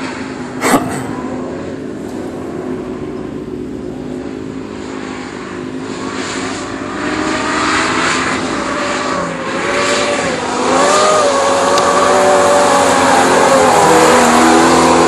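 Street stock race car's small-block V8 running hard on a dirt oval, the engine note dipping and climbing again as the car goes through the turns. It is distant at first and grows louder as the car comes past over the last few seconds. A single sharp knock about a second in.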